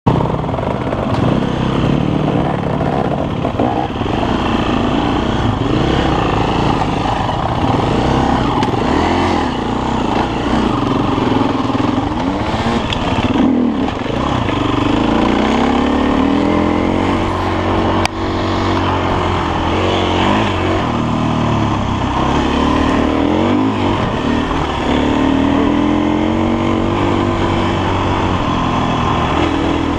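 Enduro dirt bike engine being ridden over a rough trail, the revs rising and falling again and again as the throttle is opened and closed.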